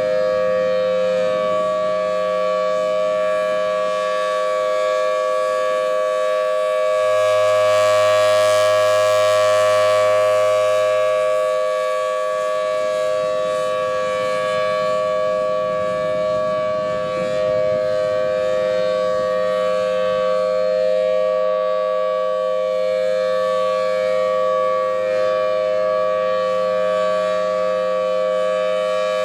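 Thunderbolt 1000T civil-defense siren sounding steadily in two tones, swelling louder for a few seconds around eight seconds in as its rotating head sweeps past.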